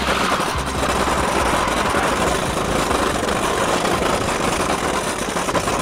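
A child's electric drift kart running over paving stones: a steady motor whine over the clatter of its hard little wheels on the bricks.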